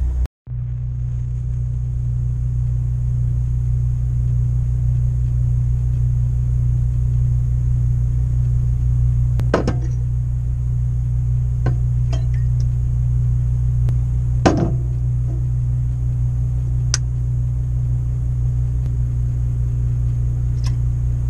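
A steady low machine hum, with a few short clinks and knocks over it, the loudest about ten and fourteen seconds in.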